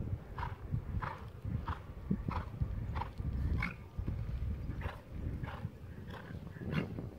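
A horse cantering on a sand arena: muffled hoofbeats with a regular beat about every 0.6 seconds, in stride rhythm.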